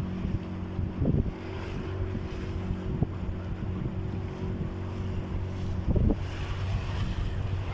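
Small boat on open water with a steady low motor hum, wind buffeting the microphone, and two louder knocks of water against the hull, about a second in and near the six-second mark.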